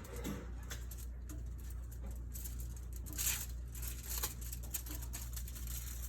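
Soft rustling, crinkling and tapping of hands rolling crescent roll dough around the filling on a foil-lined baking sheet, with one louder rustle about halfway through, over a steady low hum.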